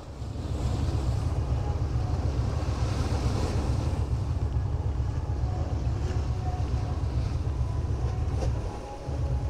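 Wind buffeting the microphone with a strong low rumble, over small waves washing onto the beach.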